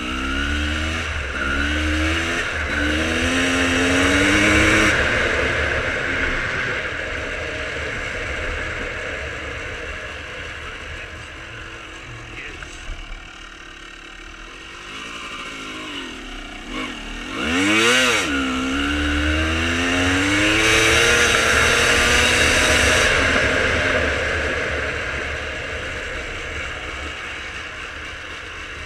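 Single-cylinder two-stroke engine of a 1995 Honda CR250R with Pro Circuit exhaust, accelerating in rising steps as it shifts up through the gears, then easing off. A little past halfway it drops away and gives one sharp rev blip, then pulls hard up through the gears again before backing off near the end.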